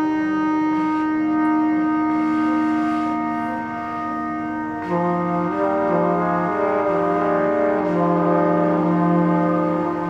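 Ambient background music of long held notes over a steady drone. About halfway through the upper notes change and a low note begins repeating in slow pulses.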